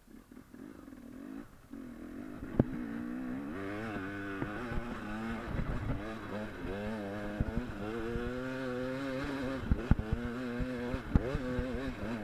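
KTM dirt bike engine revving up and down as it rides over rough ground, picking up about two seconds in, with several sharp knocks from the bike hitting bumps.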